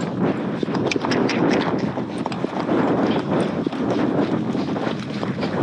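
Horses galloping over soft desert sand, heard from the back of one of them: a quick, irregular patter of hoofbeats and clicks over a steady rushing noise.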